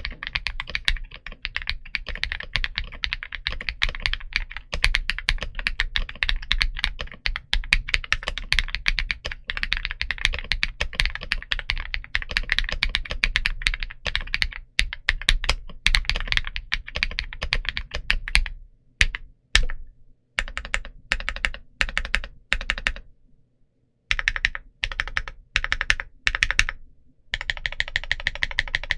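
Steady fast typing on an Akko Mod 007 V3 mechanical keyboard with Princess linear switches, an FR4 flex plate and PBT cherry-profile keycaps. Past the halfway point the typing breaks into separate strokes with short gaps and a brief pause, then comes back in quicker runs near the end.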